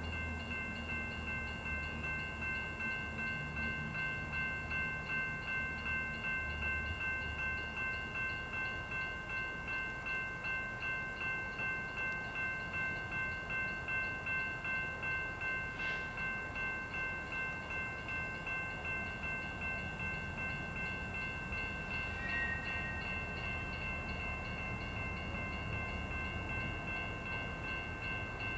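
A bell ringing steadily, about twice a second, over the low rumble of an approaching freight train's diesel locomotives.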